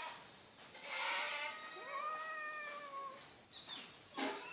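Domestic cats in a fight standoff, one giving a long drawn-out yowl that wavers and slowly falls in pitch: a threat call between rival cats. A short sharp sound follows near the end.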